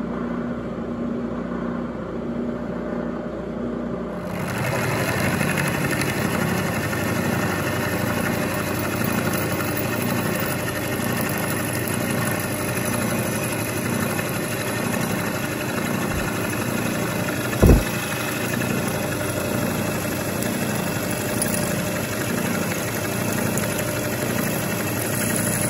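Bridgeport milling machine spindle running, then a high-speed steel end mill side-milling a steel T-nut blank from about four seconds in: a steady cutting sound with a slow, even pulse of about one a second. A single sharp knock about three-quarters of the way through.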